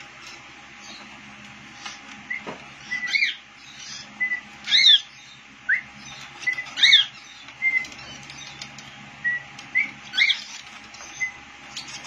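Lovebird chirping: a string of short, shrill calls, several of them louder and sliding up and down in pitch, over a faint steady hum.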